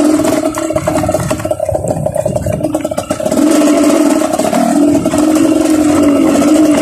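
Dirt bike engine running as the trail motorcycle is ridden along a grassy track. The note sags and wavers briefly about a second and a half in, then holds steady again.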